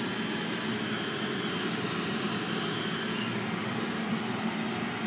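Steady, even rushing noise with a faint hum, like a running fan.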